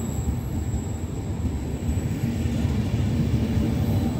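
Trenitalia double-deck electric train rolling slowly along the platform: a steady low rumble of wheels and running gear.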